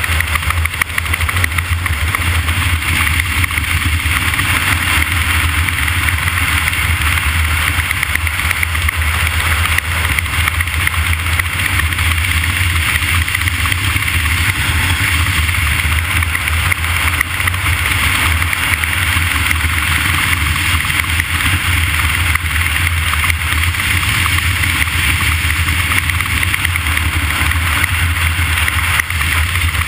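A steady, loud engine running at an even speed, with a constant low hum and no revving or pauses.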